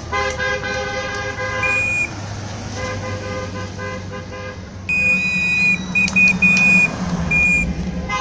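Car horns honking in long, steady blasts. From about five seconds in, a high, shrill tone sounds in several short blasts over the low hum of an approaching engine.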